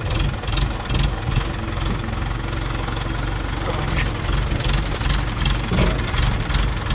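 Leaf-spring (blade set) repair machine running, with a steady low hum and a regular knock about two or three times a second.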